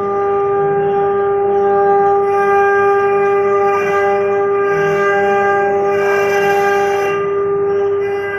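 CNC stone-carving machine spindle running with a steady, high-pitched whine. A hiss comes and goes above it.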